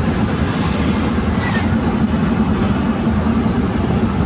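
Steady engine and road noise of a small utility vehicle, heard from inside its cab while it is under way.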